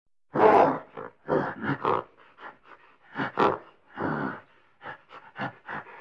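Gorilla grunting: a quick, irregular run of short, rough grunts, more than a dozen, the loudest about half a second in.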